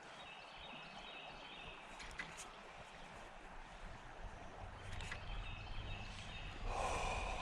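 Outdoor creek-side background with faint bird chirps twice, a few small clicks, and a low rumble that grows louder from about halfway through.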